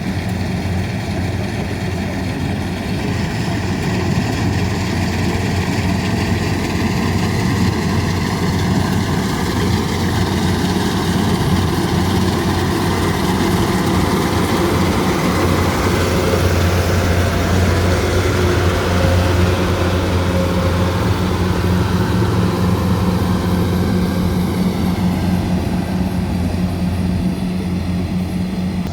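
Rice combine harvester's engine running steadily, growing a little louder a few seconds in and easing off near the end.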